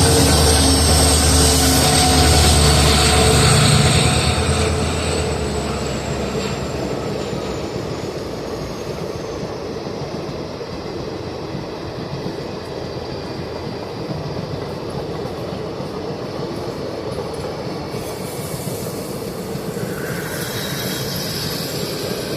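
WDP4 diesel locomotive's turbocharged EMD two-stroke V16 engine working hard under acceleration, with a high turbocharger whine that slowly falls in pitch. About four seconds in, the engine fades and the steady rumble of the train's coaches rolling on the rails takes over.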